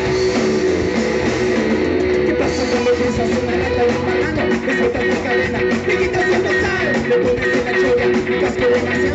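Rock band playing a song, led by guitar over a drum kit.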